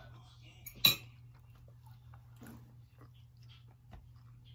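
A single sharp click about a second in, then faint scattered taps and ticks of fingers on a tablet screen, over a steady low hum.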